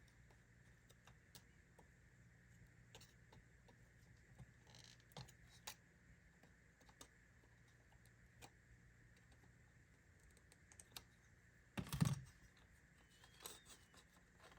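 Near silence broken by scattered faint clicks and taps of small metal parts being handled: the tabs of a Ford Model T ignition switch being worked on by hand. One short, louder knock comes about twelve seconds in.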